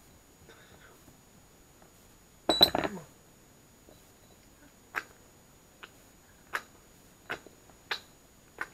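Small ceramic dishes knocking and clattering on a wooden floor about two and a half seconds in, with a brief ringing, then about six short, sharp clinks against the dishes, roughly one every half to one second, as a kitten noses and paws at them while eating.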